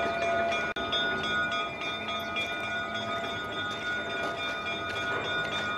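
Diesel switcher locomotive running steadily, a constant hum with a higher steady whine over it.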